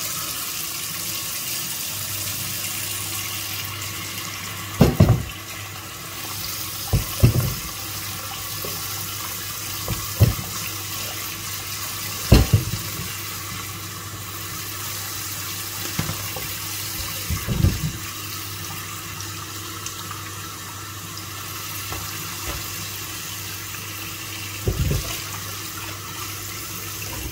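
Kitchen tap running steadily into a plastic bowl of water in a stainless steel sink as it fills, with about seven sudden splashes and knocks as whole fruits are dropped into the bowl one at a time.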